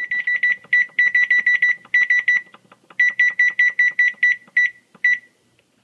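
Oven control panel beeping as the timer arrow button is pressed over and over to step the timer up: runs of short, high, same-pitched beeps, about seven a second, with a few brief pauses, stopping about five seconds in.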